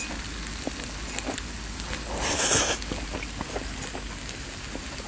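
Close-up slurping of jjapaghetti noodles, with one loud slurp about halfway through and small wet clicks of chewing around it.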